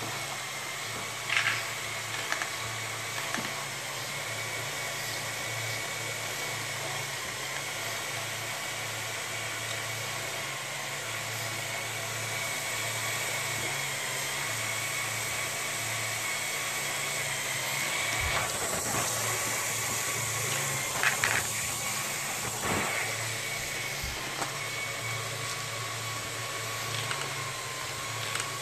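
Lego Technic model running: XL and M motors driving conveyor belts and mechanisms, a steady whirring with a thin high gear whine. A few sharp plastic clacks from the moving parts, about a second and a half in and a cluster later on.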